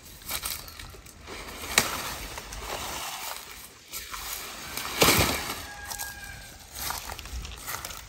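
Dry palm-frond broom and dead leaves rustling as the broom is lifted and dragged over leaf litter, with scuffing steps in the leaves. A sharp click comes about two seconds in, and the loudest rustle about five seconds in.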